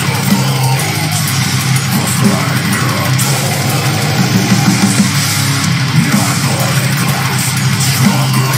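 Heavy metal song playing at a steady loud level: distorted electric guitars over bass guitar.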